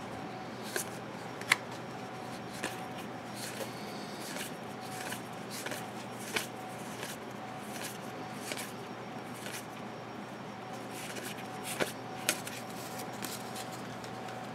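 Football trading cards being flicked off a stack and laid onto piles: soft rustling of card stock with scattered light clicks and taps, the sharpest about a second and a half in and two more near the end. A faint steady hum lies underneath.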